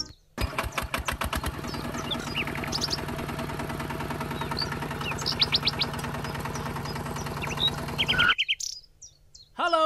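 Small motor of a DIY mini tractor running steadily, starting with a quick run of clicks and cutting off suddenly near the end. Birds chirp over it.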